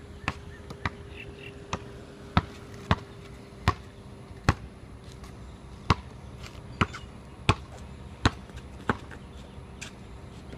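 Basketball being dribbled on a concrete court: sharp bounces at an uneven pace, roughly one or two a second, with brief pauses.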